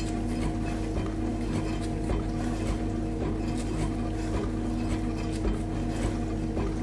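Dishwasher running: a steady motor hum under the continuous swish and spatter of water spraying inside the tub.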